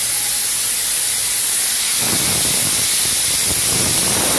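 Spray gun applying spray-in bedliner: a loud, steady hiss of spray that starts and stops sharply like a trigger being held. A lower rumble joins about two seconds in.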